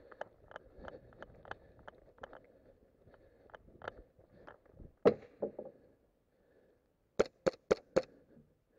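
Airsoft pistol fired four times in quick succession near the end, sharp cracks about a quarter second apart. Before them come softer, irregular clicks and knocks, with one louder knock about halfway through.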